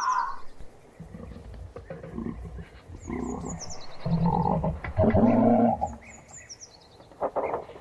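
Giraffe calls: a series of low, pitched grunting calls, the loudest two about four and five seconds in, with faint bird chirps behind them.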